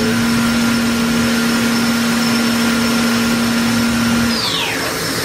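Spindle of an Okuma MILLAC 800VH machining center turning a small cutting tool, with a steady hum over a loud even hiss. About four and a half seconds in the hum stops and a high whine falls quickly in pitch as the spindle spins down.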